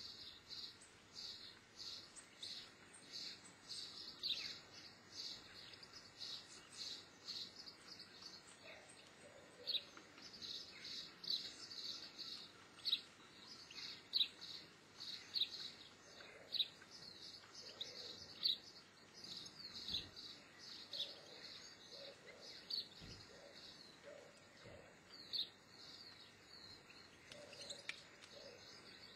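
A continuous series of short, high-pitched chirps, about two a second, loudest around the middle. A few low thumps fall in the second half.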